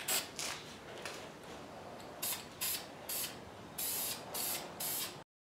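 Aerosol spray paint can hissing in about nine short bursts as paint is sprayed onto an engine.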